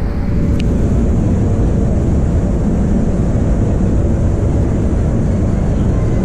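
Loud, steady low rumble of wind buffeting the camera microphone, with a single faint click about half a second in.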